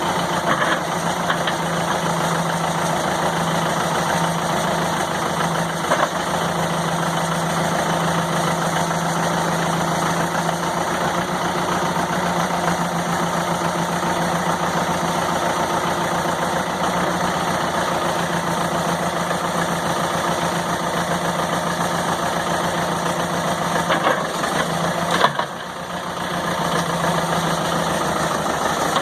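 Case 580B backhoe's engine running steadily at a low, even speed. About 25 seconds in there is a brief drop in level.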